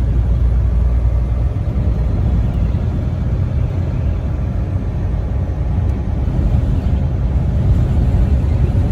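Steady low rumble of a semi-truck's engine and running gear, heard from inside the cab, with the deepest part of the rumble dropping a little about a second and a half in.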